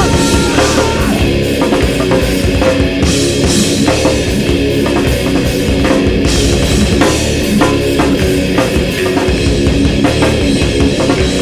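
Heavy rock band music with no vocals: a drum kit keeps a steady, driving beat under held chords.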